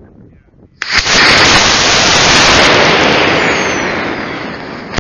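Estes Hi Jinks model rocket lifting off on an Estes B6-4 black-powder motor, heard through its onboard nose-cone camera. The motor ignites about a second in with a sudden, very loud rushing roar that fades slowly as the rocket climbs.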